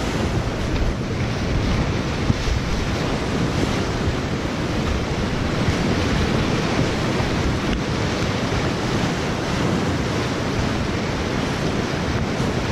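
Whitewater river rapid rushing close around a kayak: a loud, steady roar of fast, churning water.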